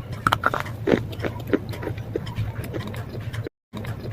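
Slate pencil being bitten and chewed: an irregular run of sharp crunches and cracks over a steady low hum, cutting out briefly about three and a half seconds in.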